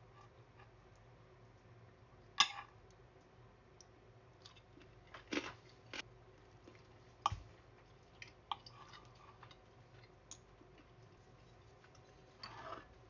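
Cutlery on a ceramic dinner plate: a knife and fork clinking and scraping now and then, a few short sharp clicks several seconds apart, and a fork rattling in a glass serving bowl near the end.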